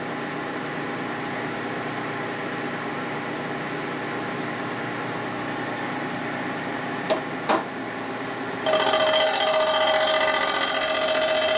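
Machine tool running steadily, with two sharp clicks about seven seconds in. Near the end the cutter bites into the metal face and a louder, ringing cutting tone with several steady pitches starts and holds.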